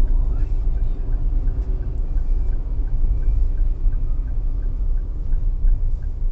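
Steady low road and engine rumble inside a moving car's cabin, with the turn-signal indicator ticking evenly about three times a second.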